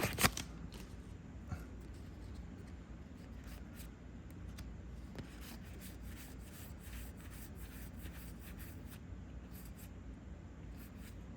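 Trading cards being handled and flicked through, with faint rustles and scattered light clicks.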